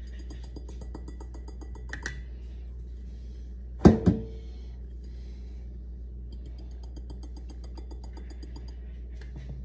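Faint music over a steady low hum. About four seconds in come two sharp knocks a fraction of a second apart, each with a short ring, as the emptied glass bottle is taken out of the funnel over the stainless steel sink.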